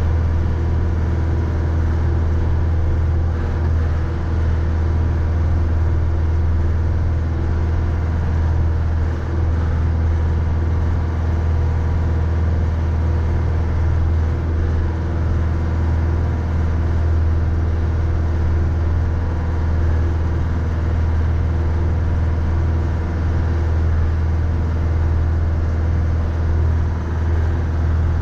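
Mahindra 3550 tractor's diesel engine running steadily, a constant low drone that barely changes.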